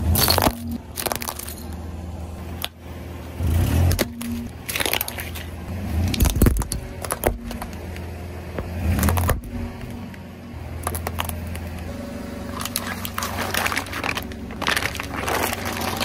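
A car tyre slowly rolling over small plastic objects, hollow plastic balls and disposable razors, crushing them with a series of sharp cracks and crunches. Under them is the car's low engine hum.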